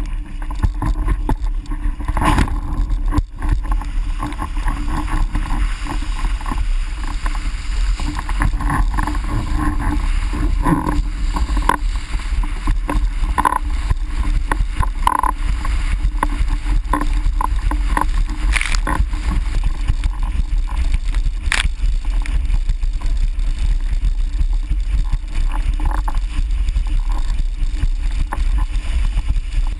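Formula windsurf board planing fast on flat water: a steady rush of water and spray along the hull, with heavy wind rumble on the boom-mounted microphone and a few sharp knocks.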